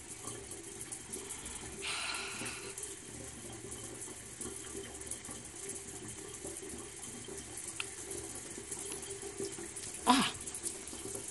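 Oral irrigator (water pick) running, a steady motor buzz with its water jet spraying against the tonsils to flush out tonsil stones. A brief louder splash about two seconds in, and a short loud throaty sound with a falling pitch about ten seconds in.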